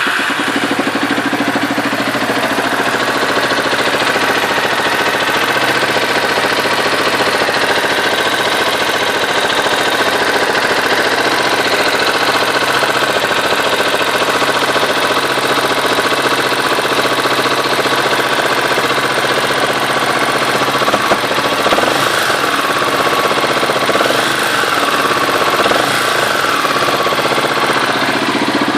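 Baja 250 engine idling steadily just after starting, with a knock coming from the cylinder head.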